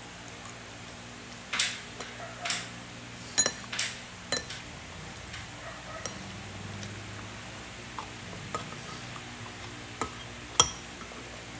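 A toddler's plastic spoon knocking and scraping in a baby bowl while she eats: a scattered string of short clicks and brief scrapes, with a louder clink near the end.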